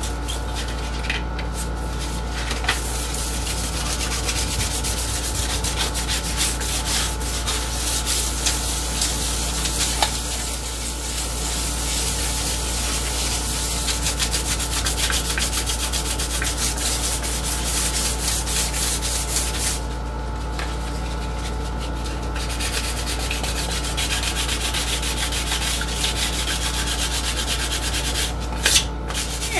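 Sandpaper rubbed by hand in quick back-and-forth strokes over a hardened epoxy resin surface: light scuff-sanding to give a new resin coat a tooth to grip. The scratching stops for a couple of seconds about two-thirds through, then resumes.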